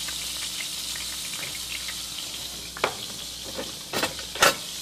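Chopped onion and butter sizzling in a frying pan as they sauté, a steady hiss. A few sharp clicks come in the last two seconds.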